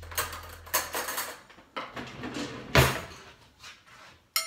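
Dishes being handled at a kitchen counter: a run of short scrapes and knocks, the loudest a sharp knock a little under three seconds in. Near the end a fork strikes a bowl with a ringing clink.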